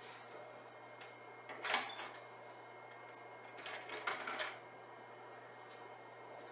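Small gray and white exposure cards being handled and set down on a lighting console: a sharp tap-and-rustle about one and a half seconds in, then a cluster of taps and slides around four seconds in. Underneath runs a steady low hum, the cooling fan of an Atomos Sumo monitor.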